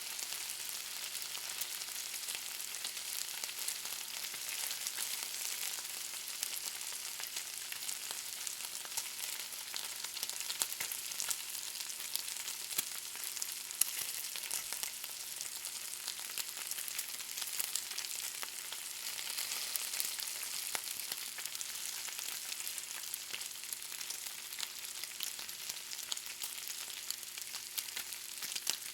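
Bacon frying in a pan: a steady high sizzle with frequent sharp crackles and pops of spitting fat.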